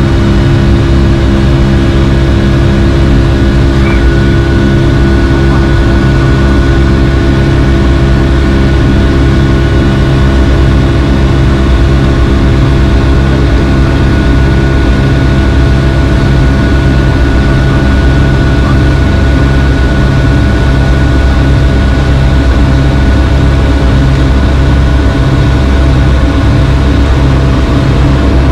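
Steady, loud cabin noise of a Boeing 757-200 in flight: its two Rolls-Royce RB211-535E4 turbofans and the airflow make a constant drone with a deep rumble and a few held tones.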